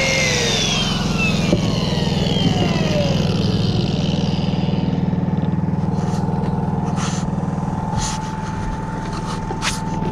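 An engine running steadily at idle, with a few sharp clicks near the end.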